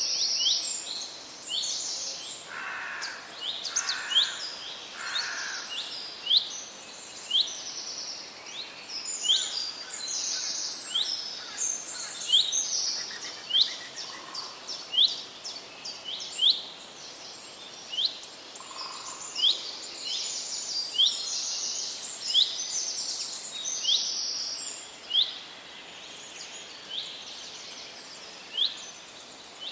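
Birds chirping: short rising chirps repeating about once a second over a busy chatter of higher calls, with a steady background hiss.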